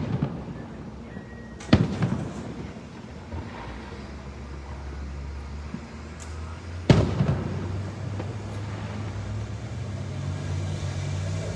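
Aerial fireworks shells bursting with sharp, echoing booms: one right at the start, another a little under two seconds in, and a third about seven seconds in. A low rumble builds through the second half.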